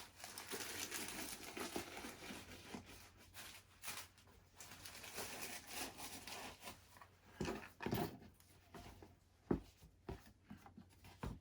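Faint rustling and crinkling of shoe packaging as the shoes are handled and packed back up, with a few soft knocks in the second half.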